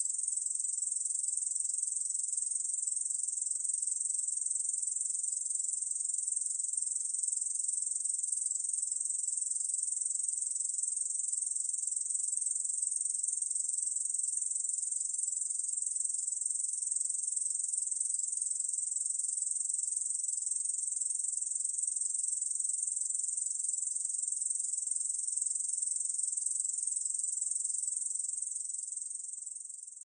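Katydid (Korean 중베짱이) stridulating: one continuous high, buzzing trill with no pauses, fading out near the end.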